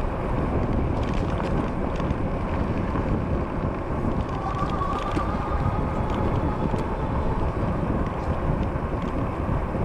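Electric bike riding on pavement: wind rumble on the microphone and the steady whine of its electric motor. The Vee Tire ZigZag fat street tires add almost no road noise.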